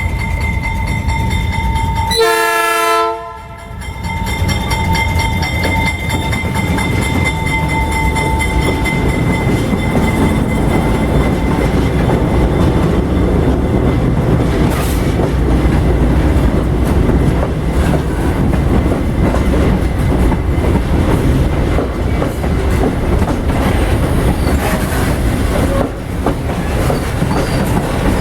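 Loaded freight train wagons rolling past with a steady heavy rumble and the clatter of wheels over the rail joints. Thin, steady high squealing tones run through the first several seconds, and there is a brief pitched sound about two seconds in.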